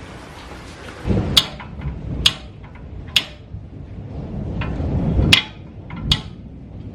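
Hammer blows on a re-welded steel steering knuckle piece, bending it so it mates flush against the spindle. About five sharp, ringing metal strikes land roughly a second apart, with a longer gap in the middle.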